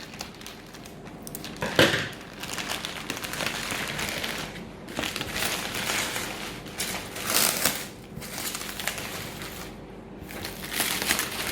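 Packaging crinkling and rustling as it is handled and opened, in irregular swells, with one sharp crack about two seconds in.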